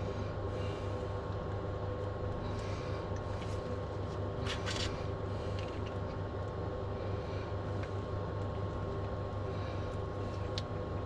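A steady low hum runs throughout, with a few light clicks and taps of small parts being handled while bearing caps are fitted back onto the dirt bike's suspension linkage.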